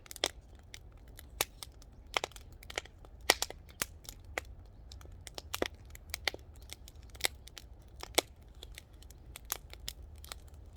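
Firewood fire crackling, with irregular sharp pops and snaps several times a second.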